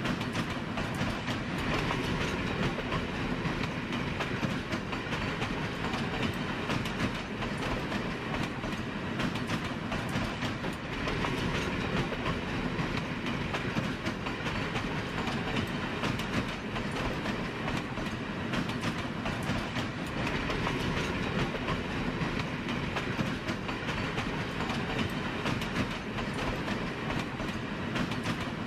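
A train running along the track: a steady running noise from wheels on rail, with many small clicks throughout.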